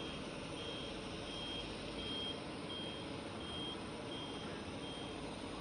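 A forklift's warning beeper sounding a steady series of short high beeps, about one every 0.7 seconds, as the forklift moves, over a steady low engine and vehicle rumble.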